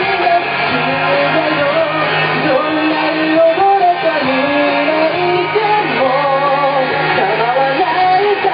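A man singing a song live into a handheld microphone over music with guitar.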